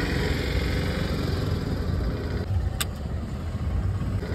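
Steady low rumble of street traffic, with one brief sharp click about two-thirds of the way through.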